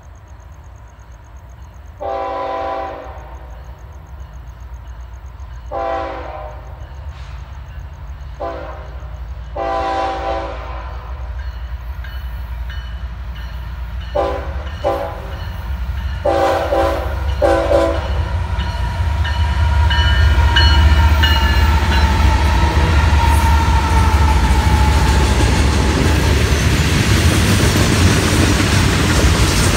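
An approaching freight locomotive's air horn sounds about eight blasts, some long and some short, ending with four short ones about 14 to 18 seconds in. The locomotives' engines and the wheels of loaded hopper cars then build to a loud, steady rumble as the train passes, with clickety-clack over the rail joints.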